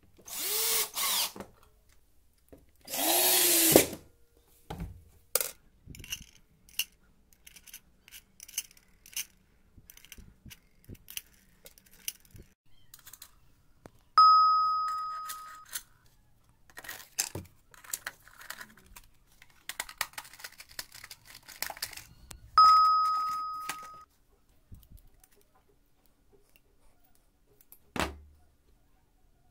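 Cordless drill driving screws through a steel mounting bracket into the wall board, two short runs in the first four seconds with the motor pitch rising and falling. Then scattered clicks and rattles of small metal tools being handled, with two clear ringing dings midway and later, each fading over about a second and a half.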